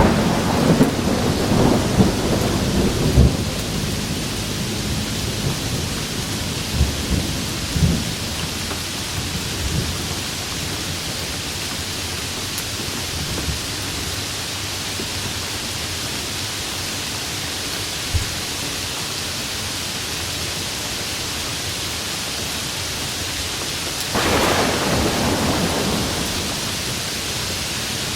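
Steady heavy rain with rolling thunder: a loud peal with sharp cracks at the start that rumbles away over several seconds, and a second, softer rumble swelling and fading near the end.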